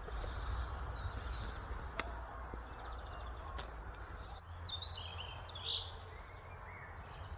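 Forest ambience: several birds chirping in short high notes over a steady background hiss, with one sharp click about two seconds in.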